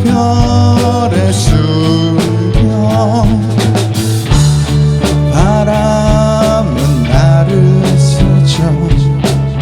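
A rock band playing live, recorded on a phone: drum kit, bass and electric guitar, with a lead line that bends and wavers in pitch.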